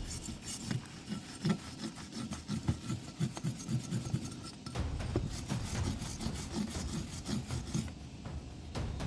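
Carbon deposits being scraped off an air compressor's cylinder head parts, softened in diesel beforehand. The scraping comes in quick, repeated rasping strokes, a few each second.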